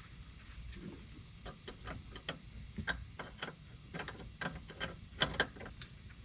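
Irregular light clicks and ticks of small metal parts being handled as a bolt is tried in the threads of a new brake line fitting.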